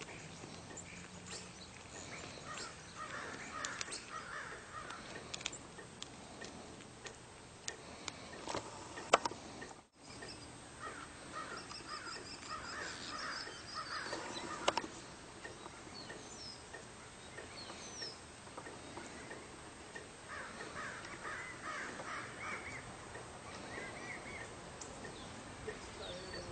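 Repeated animal cries coming in three bouts of quick calls, with a few sharp knocks in between.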